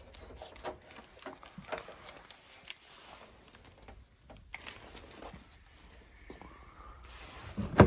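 Scattered light clicks and taps of small parts being handled, with one sharp knock near the end.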